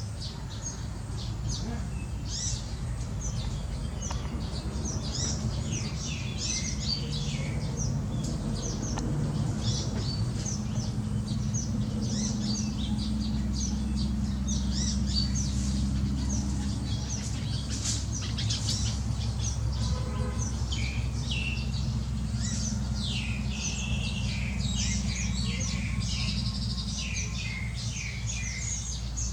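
Many small birds chirping and calling at once in a dense, continuous chatter of short high notes, over a steady low rumble.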